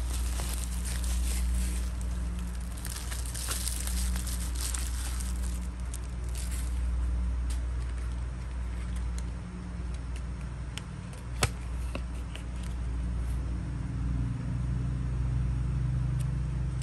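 Plastic bubble wrap crinkling and crackling as it is handled for the first several seconds, then lighter rustling of a paper sample card with a single sharp click about eleven seconds in, all over a steady low hum.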